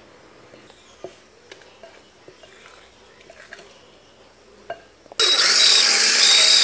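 Faint scrapes and taps of a spatula folding flour into cake batter in a bowl; about five seconds in, an electric hand blender switches on and runs steadily and loudly in the batter.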